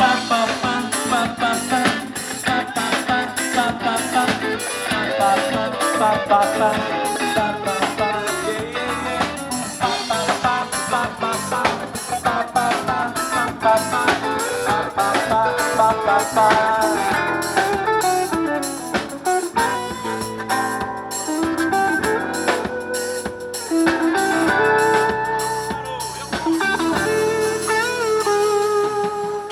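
Instrumental band music: a guitar plays melodic lines over accompaniment with a steady beat.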